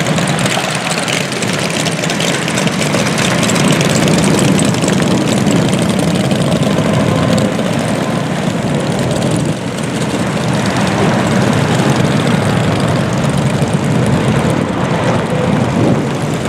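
Many motorcycle engines running together as a long procession of motorcycles rides past, a loud, steady, unbroken drone.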